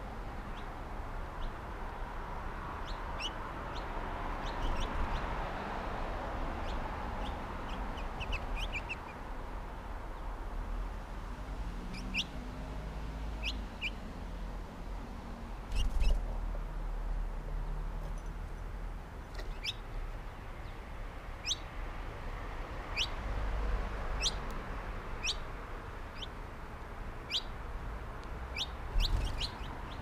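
Small songbirds chirping around a backyard seed feeder: short, sharp chirps, scattered and now and then in quick runs of three or four, over a steady low background rumble. A low bump about sixteen seconds in is the loudest moment.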